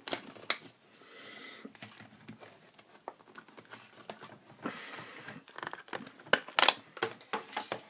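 Handling noise from a multimeter's plastic case being worked open: irregular sharp plastic clicks and short scraping rustles, with a loud cluster of clicks near the end.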